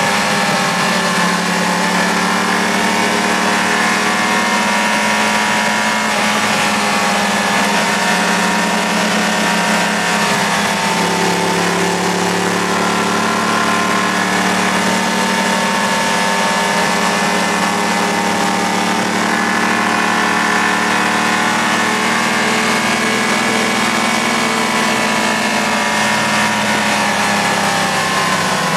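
Sport motorcycle engine running steadily under way, heard from the rider's seat, its pitch drifting gently up and down with the throttle through the bends. Wind rushes over the fairing throughout.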